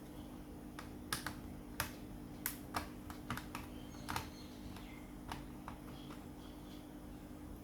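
Irregular light clicks and ticks of small screws and plastic parts being handled during laptop disassembly, about a dozen, bunched in the first five seconds or so.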